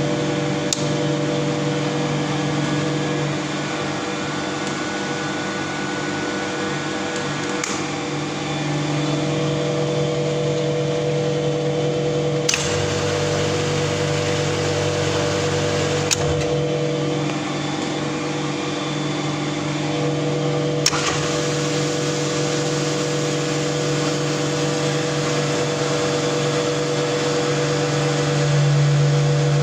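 A motor running with a steady hum made of several held tones, with about five sharp clicks spread through it. A deeper drone joins for a few seconds midway, and the hum grows louder near the end.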